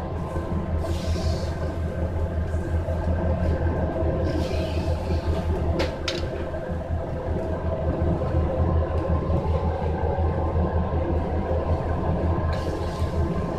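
Beef searing in a wire basket over a charcoal fire, with short bursts of sizzling hiss as fat flares on the coals and a couple of sharp crackles about six seconds in. Under it runs a steady low rumble and hum of the kitchen ventilation over the grill.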